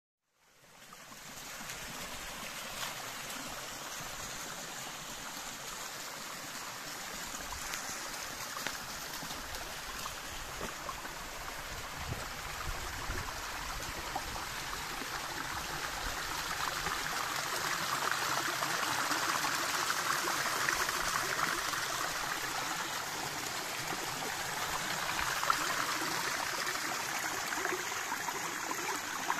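A small spring stream trickling down a rock face: a steady rush of running water that grows a little louder after the middle.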